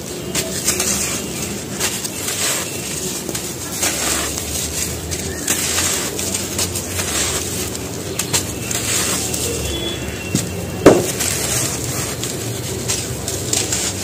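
Bare hands squeezing and crumbling lumps of dry, gritty cement, a crunching and crackling that comes in uneven bursts as the grit and dust trickle down. About eleven seconds in, one sharp, louder snap with a short falling tone stands out.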